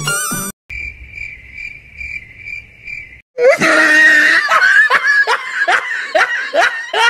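A short cricket-chirping sound effect: a steady high chirp pulsing about twice a second. Then, about three and a half seconds in, loud laughter: a string of ha-ha bursts, each falling in pitch.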